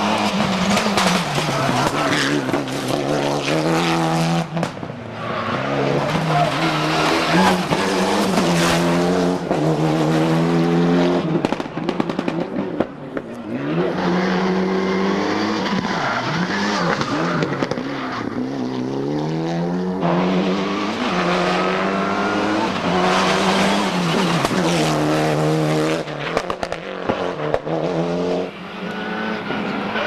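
Mitsubishi Lancer Evolution rally cars, turbocharged 2.0-litre four-cylinder engines, driven hard on a stage. Several cars come through one after another, each note climbing and dropping back again and again as they shift through the gears.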